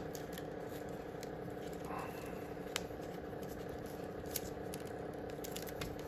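Faint handling sounds of fishing line being wound around an orchid on its mount: a few light clicks and a soft rustle over a steady low hum.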